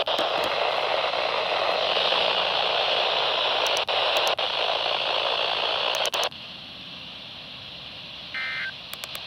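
Weather radio receiver static: a loud steady hiss that cuts out briefly a few times, then drops to a quieter hiss about six seconds in. Near the end comes one short warbling burst of EAS/SAME data tones, the first of the three end-of-message bursts that close the Required Weekly Test.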